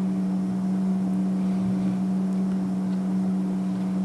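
Steady low hum from a fan or small motor, with a few faint clicks of a screw being worked out of a metal part.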